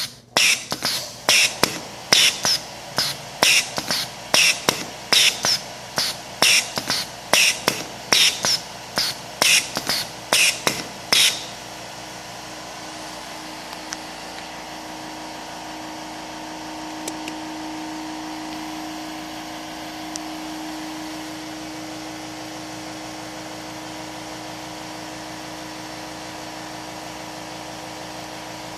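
Pneumatic cylinders and solenoid valves on a PLC-controlled drilling trainer cycling: sharp clacks with hisses of exhausting air, about two a second. They stop about eleven seconds in, leaving a steady low hum.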